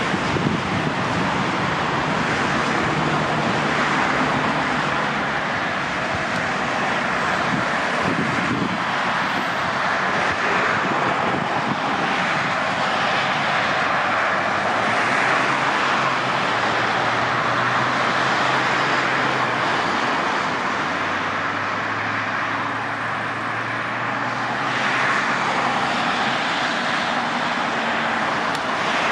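Steady roar of road traffic, with a lorry engine's low hum for several seconds in the middle.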